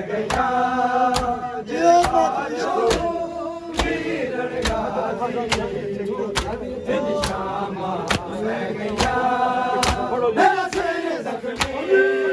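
Men singing a Muharram mourning lament (nauha) together while beating their chests with open hands in unison, one sharp slap a little less than every second, keeping time with the chant.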